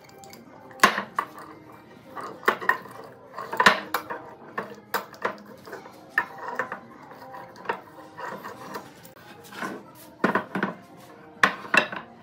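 Wooden boards knocking and clattering as they are set down and shifted against one another on a workbench: a dozen or so sharp knocks at irregular intervals.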